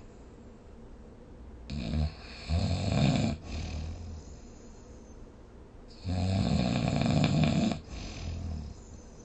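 A sleeping person snoring: two long, rattling snores about four seconds apart, each trailing off more quietly.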